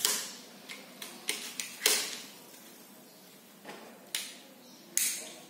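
Sharp clicks and clacks of an air rifle's parts being handled as its stock is worked. There are about half a dozen, with the loudest right at the start, about two seconds in and near the end.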